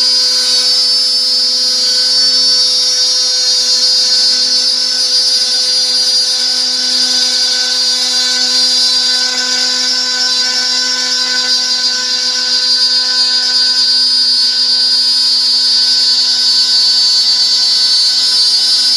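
Homemade CNC machine with a bicycle-chain axis drive running, giving a loud, steady motor whine with a high-pitched edge that holds level throughout.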